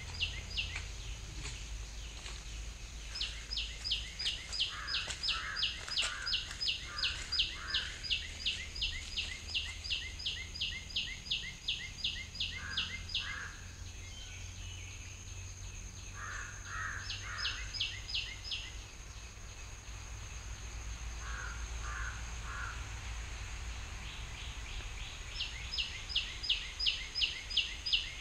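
Birds calling. One gives long runs of sharp, high repeated notes, about three a second, while lower chirps come in short clusters. A steady thin high tone runs under them until about two-thirds of the way through, over a low rumble.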